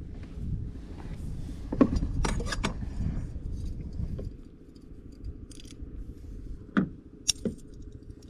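Wind buffeting the microphone as a low rumble that eases about halfway through. Several sharp clicks and clacks are scattered through it: a cluster a couple of seconds in and another near the end.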